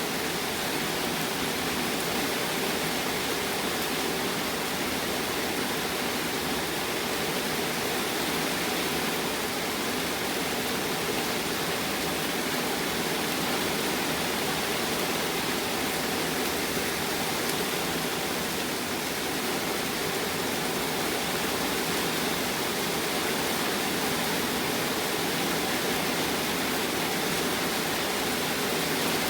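Rain falling steadily in a thunderstorm: an even, unbroken hiss with no thunderclaps.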